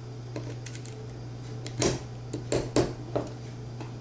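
Needle-nose pliers clicking against the grinder's housing and motor parts while prying at a stuck carbon brush: several sharp clicks, mostly in the second half, over a low steady hum.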